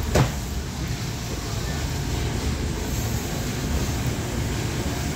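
Steady low rumble and hiss of a large warehouse store's background noise picked up by a handheld phone while walking an aisle, with one sharp thump just after the start.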